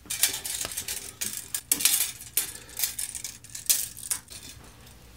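Steel tape measure being pulled out and handled: a quick run of sharp metallic clicks and rattles that thins out near the end.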